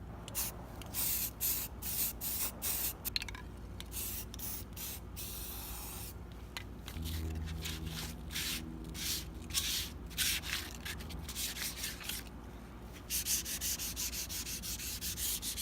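Sandpaper rubbed back and forth over the primed steel of a Jeep CJ5 front bumper, sanding the primer down in uneven strokes that come faster near the end. A faint low hum runs under it in the middle.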